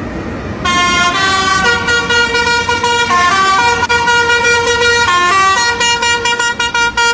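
A bright electronic tune of steady, horn-like notes that step up and down in pitch over a held lower note. It starts under a second in, after a brief hiss.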